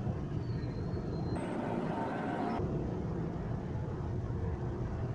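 Steady rumble of road traffic from passing vehicles, low and continuous.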